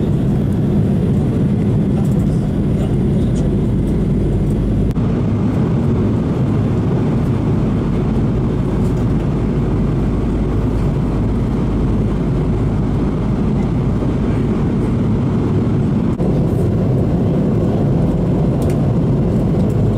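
Steady, even roar of cabin noise inside a jet airliner in flight, the engines and rushing air blended into one deep hum. About five seconds in it turns slightly brighter and hissier.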